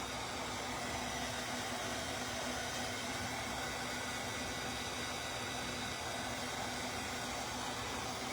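Steady background hiss with a faint low hum, unchanging throughout: room tone from a fan or air-handling unit, with no distinct events.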